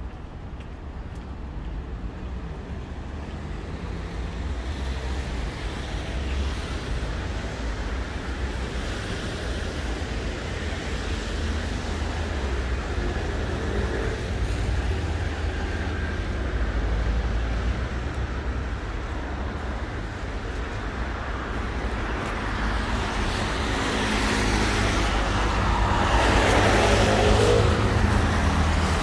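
City road traffic: a steady rumble of cars that slowly builds, with one louder vehicle passing close near the end.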